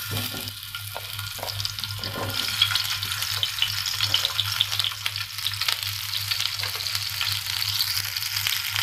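Large chunks of onion dropped into hot oil in a nonstick kadai, sizzling and crackling in the oil. The sizzle starts abruptly as the first pieces go in and keeps up steadily.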